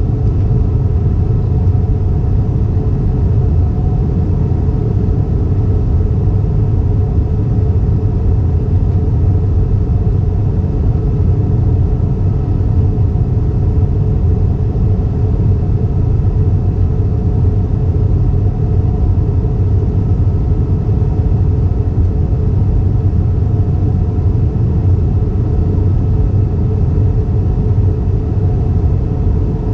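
Steady low drone inside the cabin of an Airbus A320 in flight: jet engines and airflow, with faint steady tones riding over a deep rumble.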